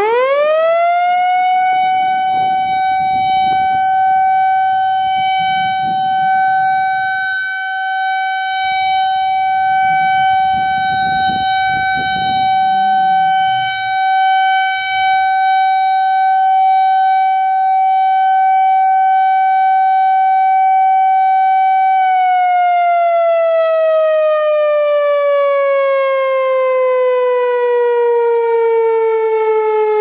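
Whelen WPS-4004 electronic outdoor warning siren, driven by an analog 864 controller, sounding its 20-second steady Alert tone. The loud single tone rises sharply at the start, holds steady for about twenty seconds, then slides slowly down in pitch as the signal winds down.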